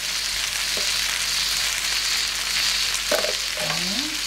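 Eggplant, green pepper and potato pieces sizzling steadily as they fry in olive oil in a wide pan.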